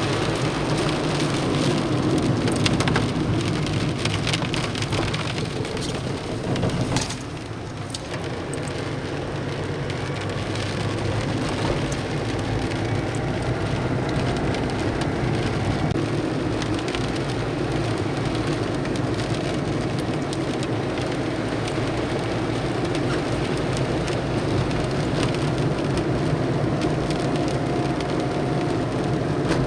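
Steady rain and storm noise, with scattered sharp taps of drops hitting a surface. The noise dips briefly about seven seconds in.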